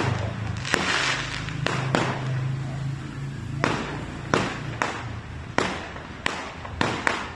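Aerial fireworks bursting overhead: a string of sharp bangs at irregular gaps of about half a second to a second, with a crackle of sparks just after the first bursts.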